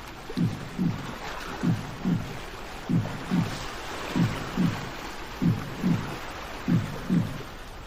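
Sea waves washing steadily, under a low double thump that repeats in even pairs about every 1.3 seconds, like a slow heartbeat.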